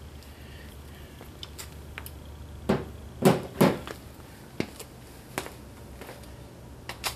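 A few sharp knocks and clicks of hand tools being handled and set down, the loudest three close together about three seconds in, then a few lighter clicks.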